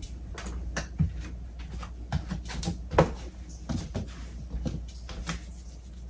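Irregular clicks and knocks, as of hard parts being handled, over a steady low hum; the sharpest knocks come about a second in and about three seconds in.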